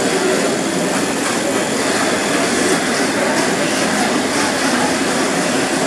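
Steady background din of a busy indoor exhibition hall, an even wash of noise with no distinct events.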